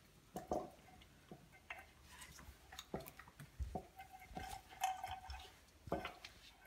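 Shiba Inu puppy eating the last pieces of dry kibble from a plastic slow-feeder bowl: irregular small clicks and knocks of kibble and muzzle against the bowl.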